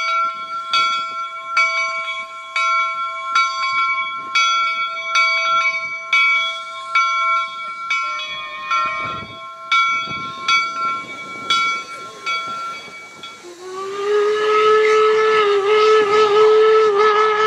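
A steam locomotive's bell rings steadily, about three strokes every two seconds. At about two-thirds of the way through it gives way to a loud, sustained steam whistle with a slightly wavering pitch.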